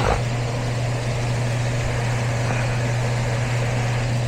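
Steady low electrical-mechanical hum of running HVAC equipment, with a brief knock right at the start.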